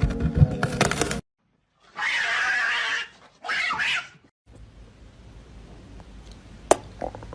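A cat cries out twice: one loud call about a second long, then a shorter one after a brief pause.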